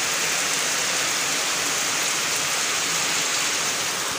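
Heavy rain pouring down: a steady, dense hiss.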